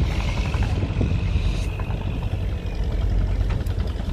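Fishing boats' diesel engines running with a steady, loud low rumble.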